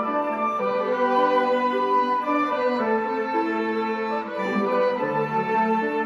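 Small student string ensemble of violins and cello playing a slow melody in held notes, several parts together.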